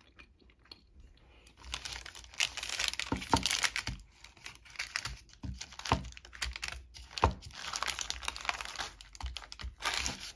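Baking parchment paper crinkling and rustling as hands pull apart and shift cut protein bars on it, with a few sharper crackles. It starts about a second and a half in and comes in irregular bursts.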